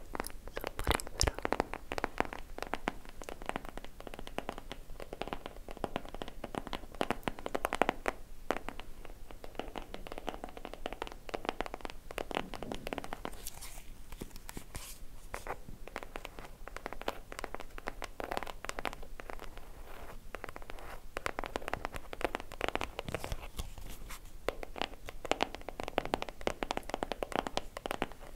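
Fingernails scratching and tapping on a small teal box held close to the microphone, an uneven, dense run of small scratchy clicks.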